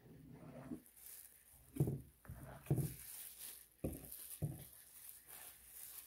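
Quiet handling sounds at a cluttered work table: several soft, low thuds as a plastic-gloved hand moves and sets down paint cups and tools.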